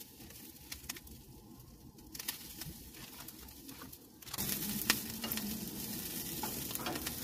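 Daikon radish sprouts and baby arugula sizzling in grapeseed oil in a frying pan, with light clicks of handling. About four seconds in the sizzle gets much louder, with the taps and scrapes of a utensil stirring the greens.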